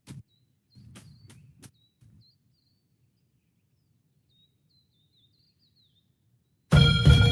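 A few faint sharp clicks and knocks with low rumble, faint small bird chirps, then loud background music starts abruptly near the end.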